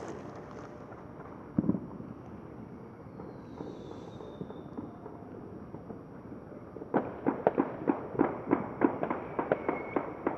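A single thump, then, from about seven seconds in, a rapid crackling run of sharp pops from a string of firecrackers going off.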